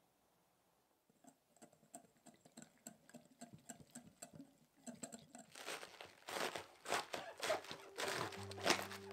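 Wire whisk clicking and scraping against a glass bowl as a thin flour-and-water batter is whisked. It starts about a second in and grows faster and louder through the second half. Music comes in near the end.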